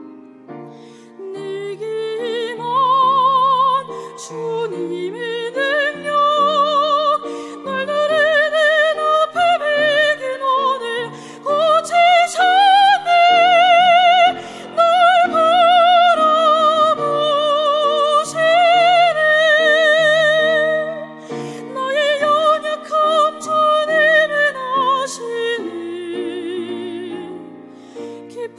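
Soprano singing a sacred art song in an operatic style with wide vibrato, over piano accompaniment. The voice climbs to its loudest, highest held notes midway, then eases down toward the end.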